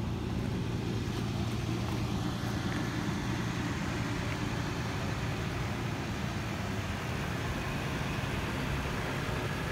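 A vehicle engine idling: a steady low hum over a haze of outdoor noise.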